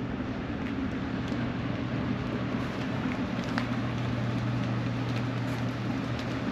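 Steady low mechanical hum over a background of even noise, with a few faint clicks.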